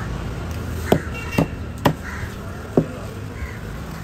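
A knife chopping through yellowfin tuna and striking the wooden cutting board, four sharp chops in quick succession, with crows cawing in the background.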